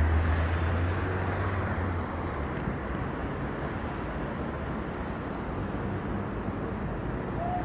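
A motor's low hum that fades away about two seconds in, over a steady rushing noise of passing traffic or wind.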